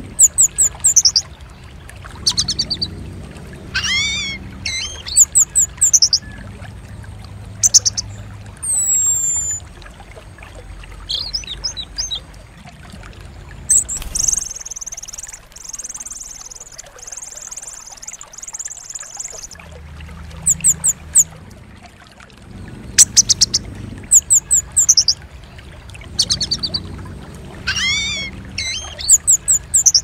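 Songbirds calling in repeated bursts: sharp high chirps, quick trills and falling whistles, with a few seconds of buzzy, rasping chatter about halfway through.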